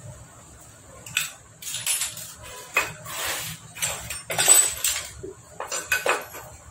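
Irregular metal clinks, knocks and short scrapes of Honda Activa engine parts being handled as the cylinder block (bore) is fitted over the piston, with the timing chain guide pad going down inside.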